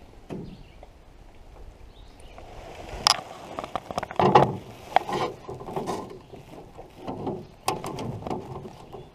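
Handling knocks and clatter in an aluminum canoe as a small bass is laid on a plastic measuring board. Sharp clicks start about three seconds in, with a scatter of softer knocks and rubbing between them.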